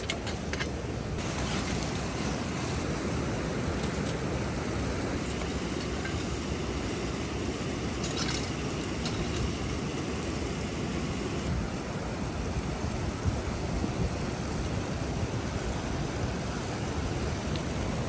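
Steady rush of river water pouring over a low weir, with a brief knock about eight seconds in.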